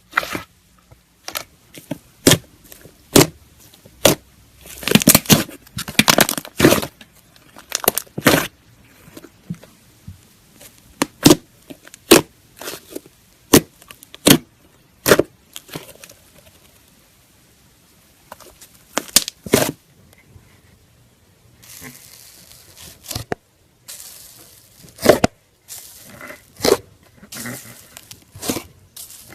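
Slime being pressed and pulled by hand, giving sharp wet pops and crackling clicks in irregular clusters, with a thick run of pops about five to seven seconds in and softer crackling in the last third.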